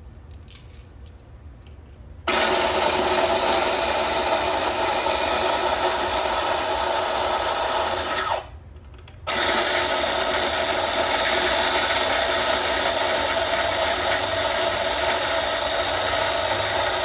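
Small electric food chopper running in two long pulses, chopping garlic, onion and green pepper into a seasoning paste. It starts about two seconds in, stops for about a second partway through, then runs again.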